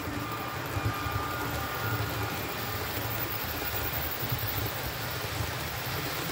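H0-scale model passenger train rolling through the layout: a steady rumble of wheels on the track and the locomotive's running gear.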